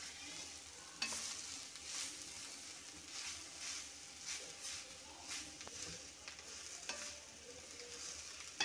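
Metal spatula stirring and scraping freshly added grated coconut through a frying chilli-onion masala in a black kadai, with repeated scraping strokes, about one or two a second, over a soft sizzle.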